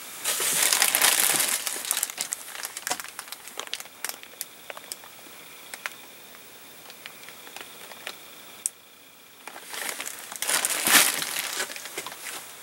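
Clear plastic bag of shotshell wads crinkling as it is handled: loud rustling for the first couple of seconds, quieter scattered crackles after that, then another burst of rustling near the end.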